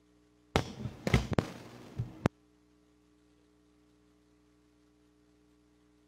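Pulpit gooseneck microphone being handled: a burst of knocks and crackling lasting under two seconds, ending in a sharp click, then only a faint steady hum.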